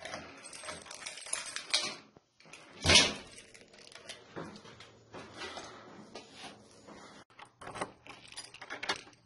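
A ring of keys jangling and clicking while a key is fitted into a door's lever-handle lock and worked. There is a loud knock about three seconds in.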